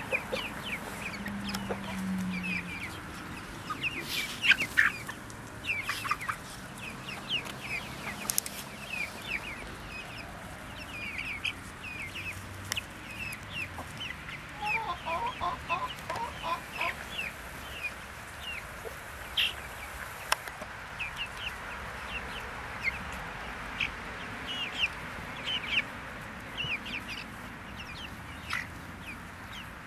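A flock of young Brahma chickens peeping and chirping, many short high calls overlapping with no pause. A little past the middle, a lower, quick run of clucks joins in for a couple of seconds.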